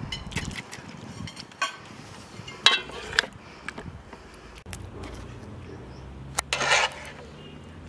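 Utensils clinking and scraping against dishes: a few separate clinks, with two longer scrapes about three seconds in and near the end.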